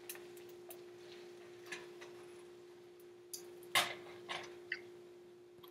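Scattered light clicks and taps, about six in all, the loudest about four seconds in: a utensil knocking against a pan on a stove, heard faintly over a video call. A steady faint hum runs under them.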